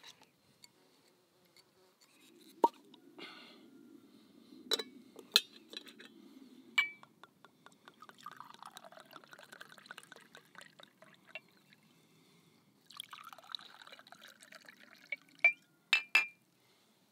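A corkscrew drawing the cork from a wine bottle, with several sharp clicks. Red wine is then poured into a small glass tumbler in two separate pours, and the glass clinks a few times near the end.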